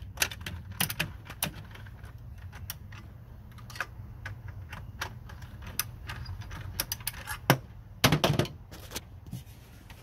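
Irregular clicks and light knocks from a hand tool working the nut of a band clamp on the air intake, and from the plastic air filter housing being handled and wiggled loose, with a cluster of louder knocks about eight seconds in.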